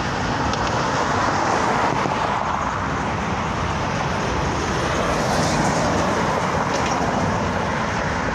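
Road traffic: cars passing on the street as a steady wash of noise that swells a little as vehicles go by.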